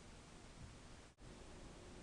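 Near silence: faint room tone and recording hiss, briefly cutting out a little past a second in.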